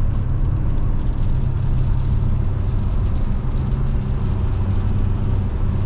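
Steady road and engine noise heard inside a car's cabin while driving on the highway: an unchanging low drone with a hiss of tyres on the road.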